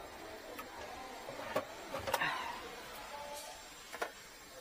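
A few sharp clicks and knocks from cables and plastic equipment being handled and plugged in, about five in all, the loudest about two seconds in.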